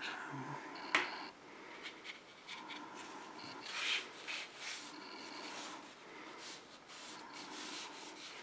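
A small paintbrush and a tissue rubbing and dabbing on watercolour paper in short scratchy strokes, softening a wet edge of paint. There is one sharp tap about a second in.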